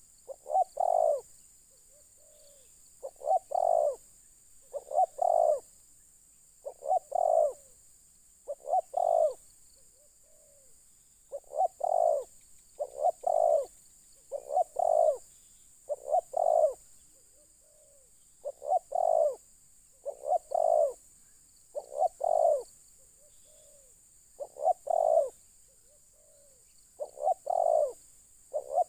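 Spotted dove cooing its repeated phrase: a soft short note, then two loud coos, about every two seconds. A faint steady high hiss runs underneath.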